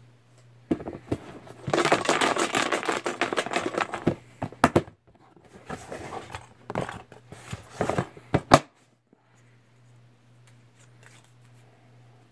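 Slips of paper being rustled and handled while a raffle name is drawn: a dense run of rustling about two seconds in, then scattered sharp clicks and crinkles that stop about two-thirds of the way through, leaving a faint steady hum.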